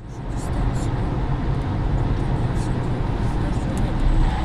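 Car driving at highway speed, heard from inside the cabin as a steady low rumble of tyre and road noise.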